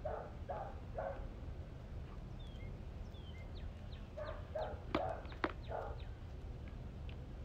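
Short animal calls in two bouts of four or five, about two a second, with faint high bird chirps between the bouts. Two sharp clicks come during the second bout, about five seconds in, and are the loudest sounds.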